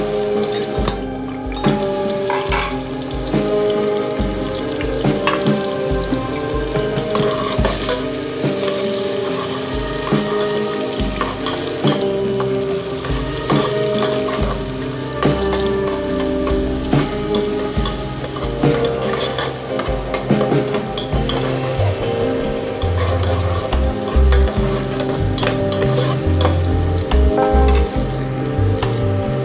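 Chopped onions sizzling in hot oil in an aluminium pot, stirred now and then with a ladle, with background music playing underneath.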